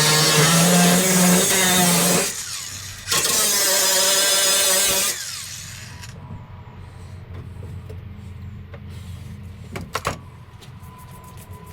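A power tool runs in two bursts of about two seconds each, with a short pause between them, its pitch wavering as it works. It then stops, leaving a low hum, with a couple of sharp knocks about ten seconds in.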